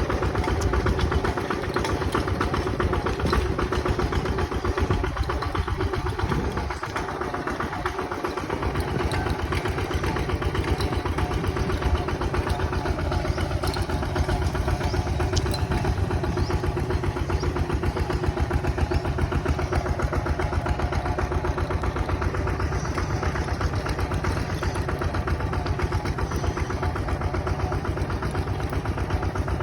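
Bulldozer's diesel engine running steadily with a fast, even firing pulse, briefly easing in the low end about six seconds in before settling back.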